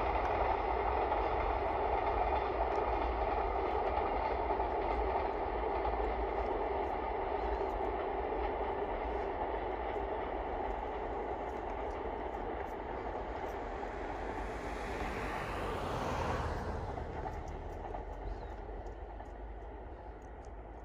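Long container freight train rolling past at a distance, the steady noise of its wagons on the rails slowly fading as it goes away, with a brief swell about three quarters through.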